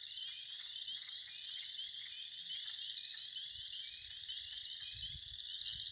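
A steady, high-pitched chorus of small frogs, many quick rising trills overlapping; a brief run of clicks about three seconds in.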